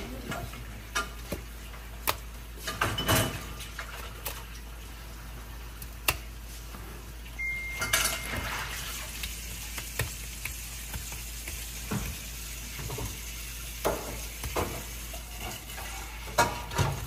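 Kitchen clatter: scattered knocks and clinks of dishes and utensils over a steady background hiss. A short high beep sounds about seven and a half seconds in.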